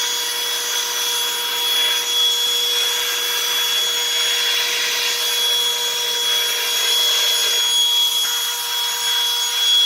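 Black+Decker 20V Max lithium cordless vacuum in handheld mode running steadily while picking up floor debris: a constant motor whine over the hiss of the airflow.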